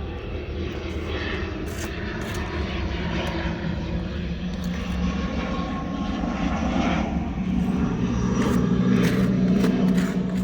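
An engine running steadily with a low hum, growing louder in the last few seconds, with a few light clicks and knocks over it.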